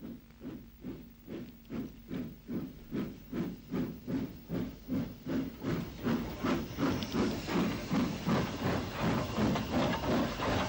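UTA WT-class 'Jeep' 2-6-4T steam tank locomotive arriving under steam: a steady beat of exhaust chuffs, about three a second, over a hiss of escaping steam, growing louder as it comes close.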